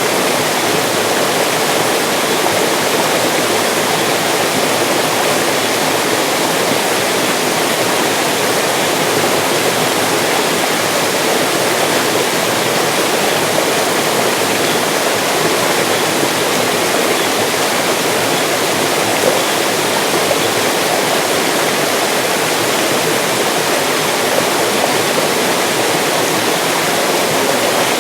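Mountain stream rushing and splashing over rocks, a steady, even rush of water.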